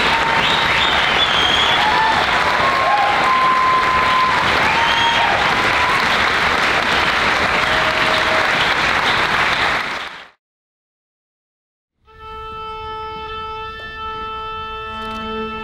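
Concert audience applauding and cheering, cut off abruptly about ten seconds in. After a short silence, a symphony orchestra comes in with sustained held notes.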